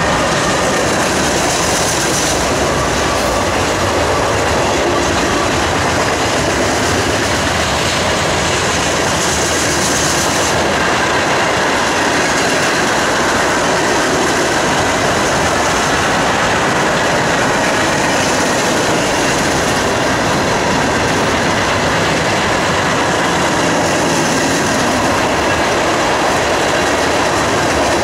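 Freight train passing close by: the trailing GE AC4400CW diesel locomotive goes by in the first second, then a long string of freight cars rolls past with a steady, loud rumble of steel wheels on the rails.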